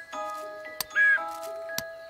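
Gentle cartoon background music of soft held notes, with two light ticks and, about a second in, a short loud whistled chirp standing for the blackbird's call.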